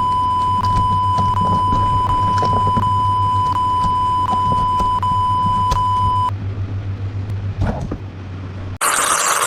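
A steady high-pitched beep tone over a low hum, with a click about every 0.7 seconds, stopping about six seconds in. Near the end a loud burst of static-like hiss cuts in.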